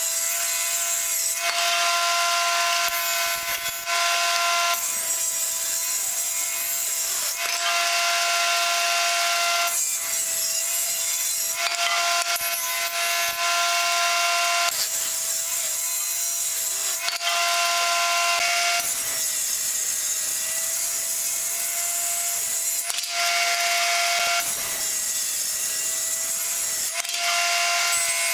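Table saw on a combination woodworking machine making a series of rip cuts through hardwood boards: each pass is a loud rasping cut of a second or few, with the blade spinning free between passes with a steady whine.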